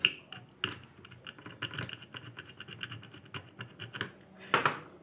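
A fast, irregular run of light clicks and taps, with a short, louder rushing sound about four and a half seconds in.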